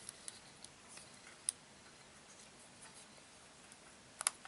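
Handling noise of an iPhone 5s in a soft case: scattered small clicks and taps as fingers work the phone and case. The sharpest click comes about a second and a half in, and a quick double click near the end.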